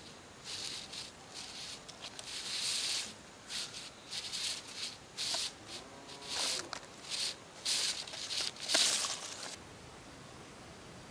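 Footsteps rustling through dry grass and leaves, about two to three steps a second, stopping near the end.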